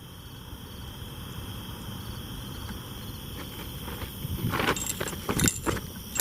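Crickets chirping steadily over a low background rumble, with a few footsteps from about four and a half seconds in.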